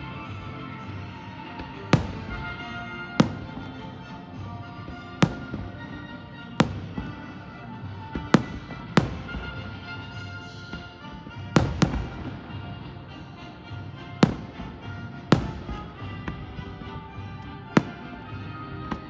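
Fireworks bursting in the air, about a dozen sharp bangs every second or two, some followed by crackle, over music playing throughout.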